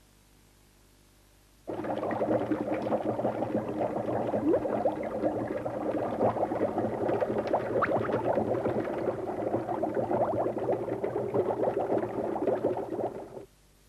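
Water bubbling sound effect, a dense stream of many small bubbles, starting abruptly about two seconds in and cutting off near the end.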